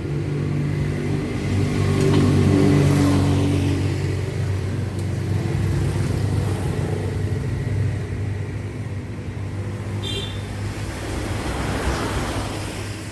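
Motor vehicle traffic passing: an engine swells to a peak about two to three seconds in and fades, and another vehicle passes near the end. A brief high ring sounds about ten seconds in.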